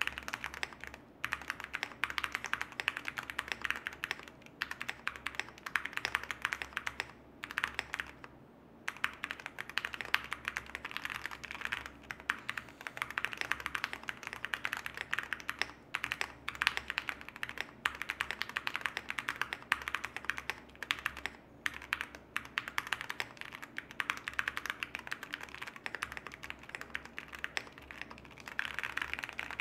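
Mechanical keyboard being typed on steadily: fast, continuous runs of key clacks with short pauses, the longest about 8 seconds in.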